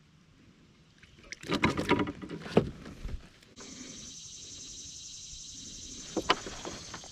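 A fishing reel cranked in a steady high whir through the second half, with a couple of sharp clicks near the end, after a loud second or two of knocking and splashing at the kayak as a hooked bass is brought in.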